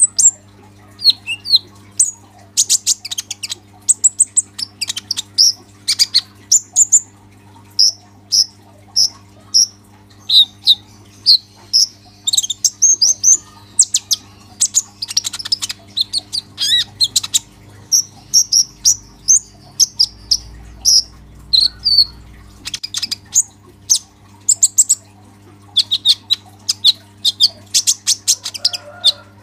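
Caged male kolibri ninja (purple-throated sunbird) singing in full, chattering song: a fast, unbroken run of short, high chirps, twitters and sharp clicking notes. A faint steady hum lies underneath.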